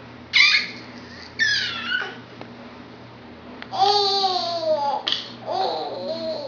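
A baby squealing and babbling: two short high squeals, then a longer wavering squeal-babble about four seconds in and more up-and-down vocal sounds near the end.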